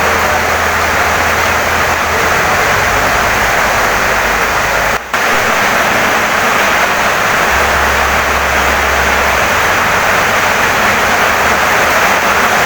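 Heavy rain pouring down on a wooden house: a dense, steady hiss with a low rumble underneath, cutting out for a split second about five seconds in.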